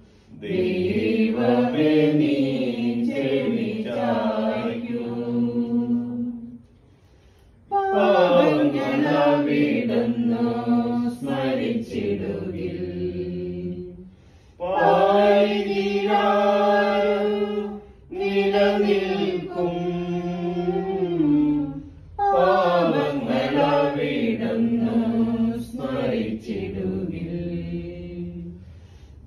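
Small mixed group of men's and women's voices singing a Malayalam hymn for the departed without accompaniment, in phrases of a few seconds with short breaks between them. A longer pause comes about seven seconds in.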